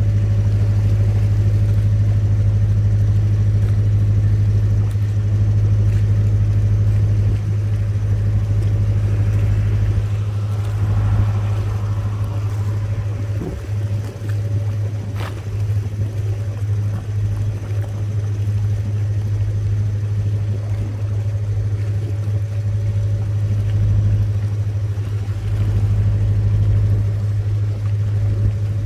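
A canal boat's engine running steadily while under way, a loud constant low hum.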